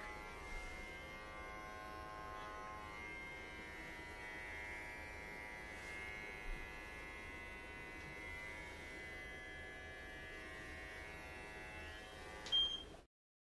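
Electric pet hair clippers running with a steady buzz as they shave a Pembroke Welsh Corgi's coat. A brief sharp click comes near the end, then the sound cuts off.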